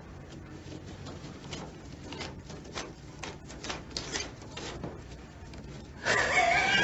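Paper banknotes rustled and flicked through by hand, a quick irregular series of crisp paper snaps and rustles. A man starts laughing near the end.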